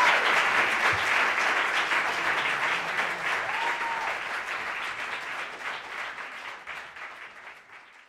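Concert audience applauding, with a brief cheer about three and a half seconds in; the applause fades away toward the end.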